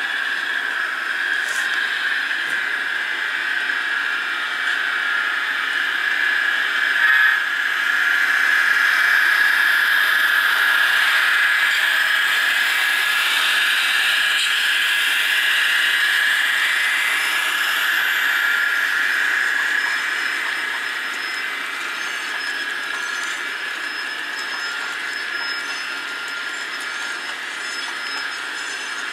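HO scale model freight train running past on the track, a steady high-pitched whine and hiss from the locomotives and the wheels on the rails. It is loudest while the diesel units go by and eases a little as the freight cars follow.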